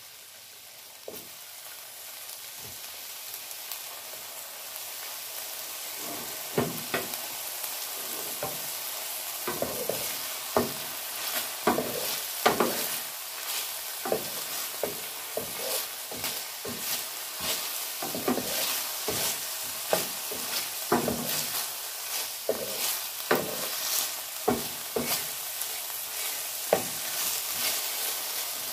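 Green peas and broccoli sizzling in hot oil in a frying pan, the sizzle growing louder. From about six seconds in, a wooden spatula scrapes and knocks against the pan, over and over, as the vegetables are stirred.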